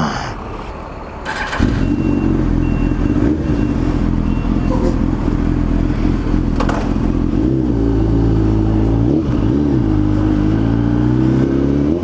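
2006 Kawasaki ZX-10R inline-four with a Two Brothers Racing M-2 VALE exhaust (cat delete) starting up about a second and a half in, then idling steadily. Toward the end the revs rise and fall a few times as the bike pulls away.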